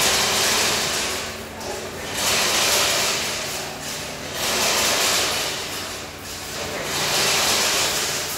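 Workshop ambience dominated by a rushing air noise from pedestal fans that swells and fades about every two and a half seconds, with a steady low hum underneath.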